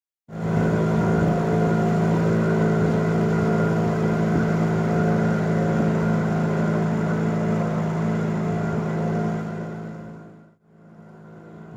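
Small wooden river boat's engine running steadily under way, with a steady low hum. It fades out about ten seconds in, then comes back fainter for a moment.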